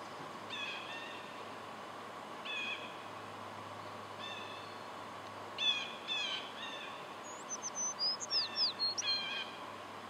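Songbirds calling at dawn: short high calls repeated every second or two, then near the end a quick run of about six downward-slurred whistles.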